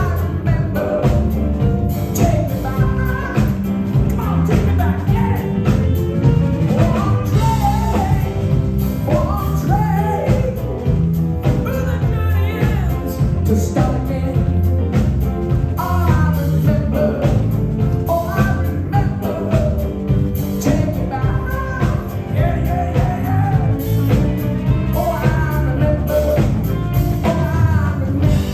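Live rock band playing, with a male lead vocal singing over a steady drum beat.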